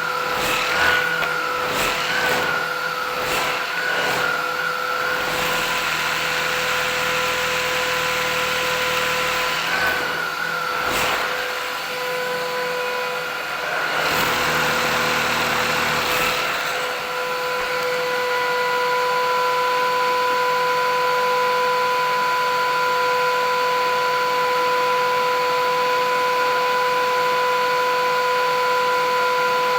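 Philips 8000 series vacuum cleaner running with a steady motor whine and rushing air. For the first half or so, irregular knocks and a slight wavering in pitch break in; after that it runs evenly.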